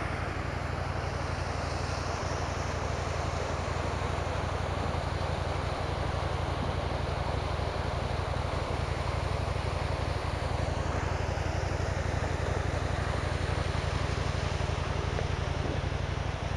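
KTM 790 Adventure's parallel-twin engine running steadily at an even pace, with wind rushing over the microphone.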